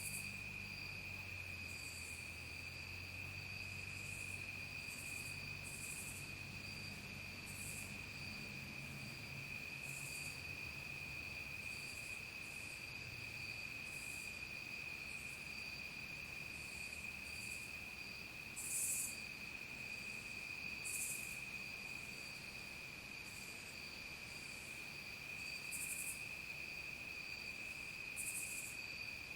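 Dusk chorus of crickets: a steady, unbroken high trill, with short, higher chirps from other insects every second or two, a couple of them louder about two-thirds of the way through.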